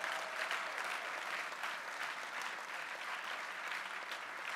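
Large audience applauding steadily, easing off a little near the end.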